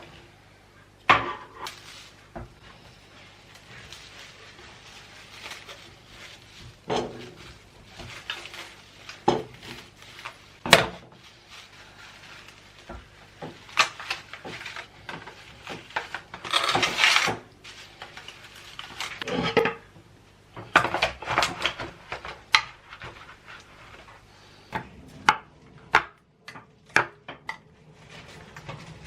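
Kitchen clatter of dishes, containers and utensils being handled and set down: a scattered run of clinks and knocks, with a louder stretch of about a second a little past the middle.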